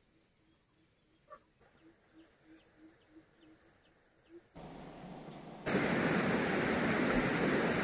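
A few faint soft pips, about three a second, then a steady rushing noise that cuts in suddenly about five seconds in and gets louder a second later.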